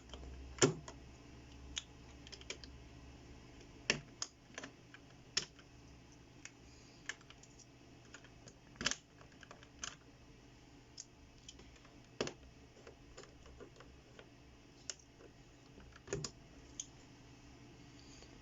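Irregular sharp plastic clicks and snaps as keycaps are pulled off and pressed onto the Kailh Red switch stems of a mechanical keyboard, with a few louder knocks among them.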